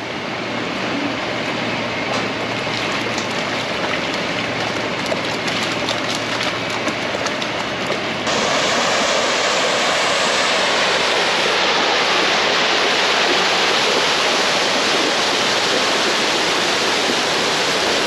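Dairy barn flush water rushing down a freestall alley, a steady rush of water; about eight seconds in it gets suddenly louder and brighter.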